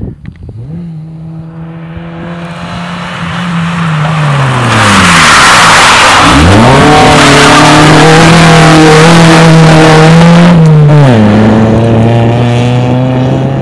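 Vauxhall Corsa B rally car's 1.4-litre 8-valve four-cylinder engine driven hard past close by. The revs hold and then sink as the car slows, with loud tyre scrub on the loose surface. About six seconds in the revs climb steeply and stay high as it pulls away, then drop sharply near the end at a gear change.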